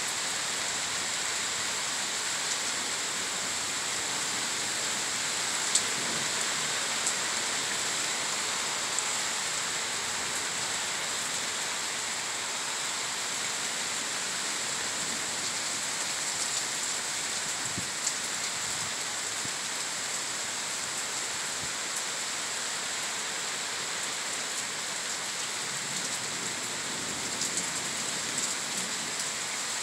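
Heavy thunderstorm rain pouring steadily, with a few sharp ticks of drops striking close by.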